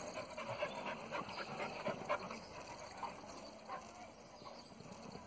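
Faint dog sounds from five-month-old American foxhound and Bleu de Gascogne hound puppies moving about their pen, with scattered short taps and scuffs. The loudest tap comes about two seconds in.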